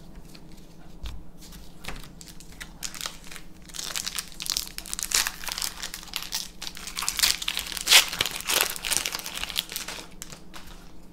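Foil booster pack wrapper crinkling and tearing as the pack is opened, starting about three seconds in and loudest near the end, after a few soft clicks of playing cards being handled.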